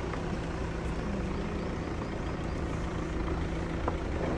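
A car engine running steadily, a low even hum.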